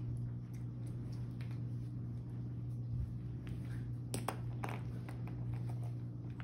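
Steady low hum in the room, with a few light clicks and taps about four seconds in as small toys are handled.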